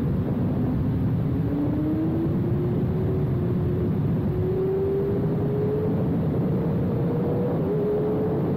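Kawasaki ZX-6R's 636 cc inline-four, fitted with an SC Project GP70R mid-pipe exhaust, running under way, its note climbing slowly and evenly as the bike gathers speed. A heavy low rushing noise runs beneath it.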